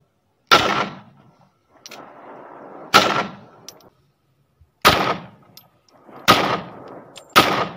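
Five single shots from a Darra-made copy of a Zigana Sport 9mm pistol, fired one to two seconds apart at an uneven pace. Each shot is a sharp crack followed by a short echo.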